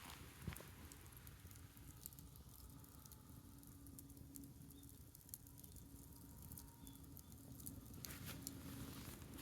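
Faint crackling of a wood bonfire: scattered small pops and ticks, with one soft knock about half a second in, over a faint steady low hum.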